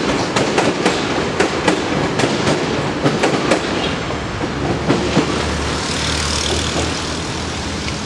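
Wheels of a train of new Tobu 50000-series cars, hauled as a delivery, clicking over rail joints and points as it moves off. The clicks stop about five seconds in, leaving a steady rumble.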